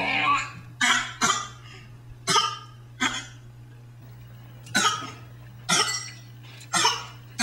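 A six-month-old baby fake coughing: about seven short, forced coughs, single or in pairs, spaced roughly a second apart.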